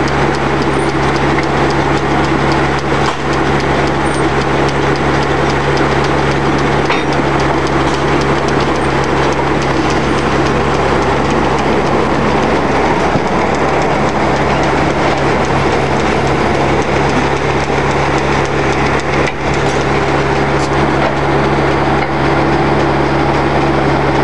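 B.K. Davis circular sawmill running, a loud steady machine drone from its power unit and spinning saw, wavering slightly about halfway through.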